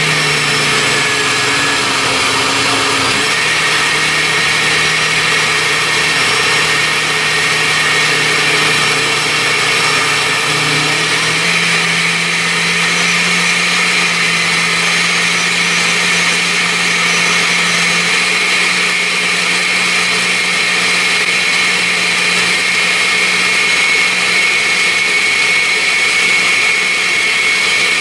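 Countertop blender motor running steadily on its blend setting, mixing a thick cream-cheese cheesecake batter: a steady hum with a high whine over it. The hum's pitch rises a little about eleven seconds in.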